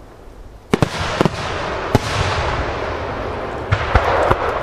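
Starmine fireworks display: aerial shells going off in sharp bangs in quick clusters, about a second in, at two seconds and again near the end. Between the bangs a steady rushing hiss and rumble carries on from about two seconds onward.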